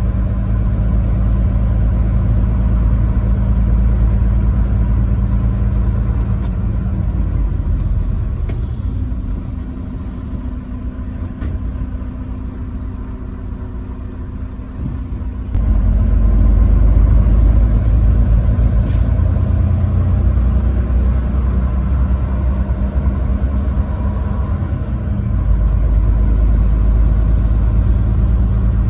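Truck engine and road noise while driving: a steady low engine drone that eases off for several seconds, then picks up again suddenly about halfway through.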